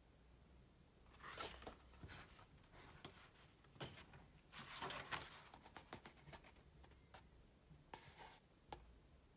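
Faint paper rustles and swishes of a hardback photo book's pages being turned and handled, in three soft clusters: a little after the start, around the middle, and near the end.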